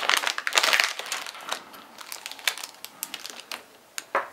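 Plastic Lego minifigure blind bag crinkling as it is torn open, densest and loudest in the first second, then lighter crinkles and small clicks as it is handled, with a sharper click near the end.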